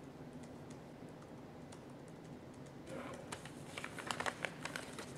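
Typing on a MacBook laptop keyboard: a few scattered key clicks, then a quick, dense run of clicks starting about three seconds in, over faint room tone.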